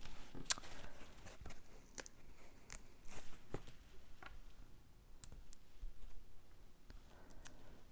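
Cardstock pieces being handled and pressed together by hand: irregular light clicks, taps and soft paper rustles.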